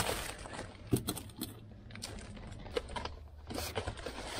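Irregular small clicks and rustling as a gloved hand digs through mouse-nest debris and paper among the wiring and plastic trim of a stripped car center console. The sharpest click comes about a second in.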